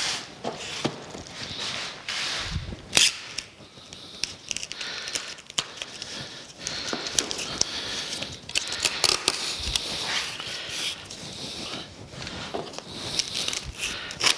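Clear packing tape pulled off a handheld tape-gun dispenser and pressed onto a cardboard box, in stretches of crackly unrolling noise broken by sharp clicks and knocks as the dispenser and box are handled. A sharp knock about three seconds in is the loudest sound.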